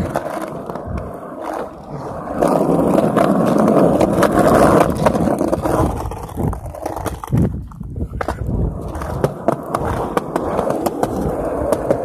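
Hard wheels rolling over pavement, as on a skateboard: a continuous rumble with frequent sharp clicks and knocks. It briefly eases off about eight seconds in.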